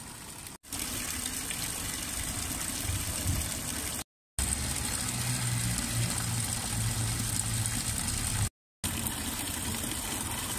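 Small Roman marble wall fountain's thin jets of water splashing steadily into its stone basin. The sound breaks off into brief silence three times, about half a second in, about four seconds in and about eight and a half seconds in.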